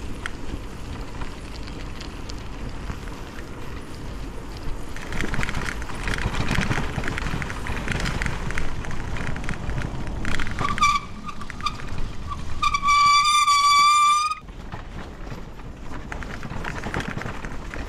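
Wind and road noise from a moving bicycle. About eleven seconds in a short high-pitched steady tone sounds, then a louder one is held for about two seconds and cuts off suddenly.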